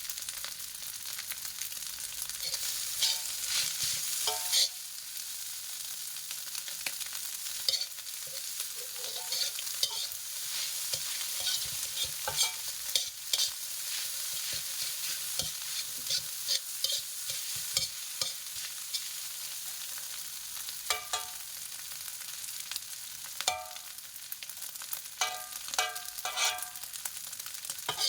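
Nasi goreng (fried rice) sizzling steadily in a pan while it is stirred, with a spatula scraping and knocking against the pan in short clusters of clinks, some ringing briefly.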